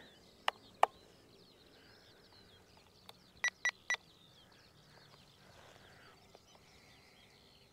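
Three short, evenly spaced electronic beeps from an RC radio transmitter in the pilot's hands, about three and a half seconds in, after two sharp clicks in the first second. Faint birdsong chirps in the background throughout.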